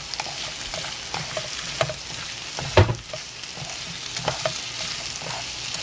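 Watermelon rind strips, onion and red chili stir-frying in a pan with perilla oil: a steady sizzle under light taps and scrapes as they are stirred, with one louder knock against the pan about three seconds in.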